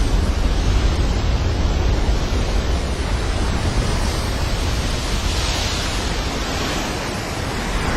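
Big ocean surf breaking, a steady rush of white water with a louder hiss swelling around the middle, and wind buffeting the microphone.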